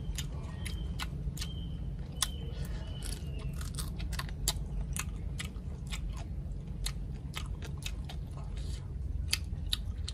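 Close-up chewing and crunching of crispy deep-fried crocodile meat and skin: many sharp, irregular crackles over a steady low rumble.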